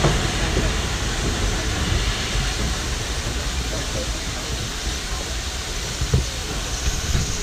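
Ol49 steam locomotive at the platform, a steady low rumble with steam hiss, and a crowd talking.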